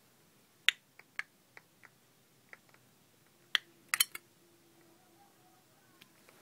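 A dozen or so sharp clicks and taps at irregular intervals, with a quick cluster about four seconds in, and a faint steady hum in the second half.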